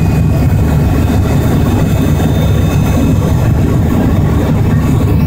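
Steady low rumble of a jet airliner heard from inside the cabin on final approach to landing: engine noise and airflow, with a faint high steady whine.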